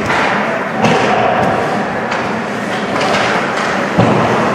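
Ice hockey play on the ice: several hard knocks of sticks and puck over a steady noisy rink background, the sharpest about four seconds in.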